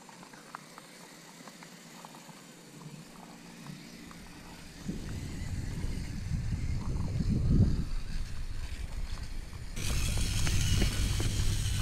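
Axial Capra RC rock crawler's electric motor and gears whining faintly as it creeps over gravel, with scattered small clicks of stones. About five seconds in a loud low rumble takes over, turning hissier about ten seconds in.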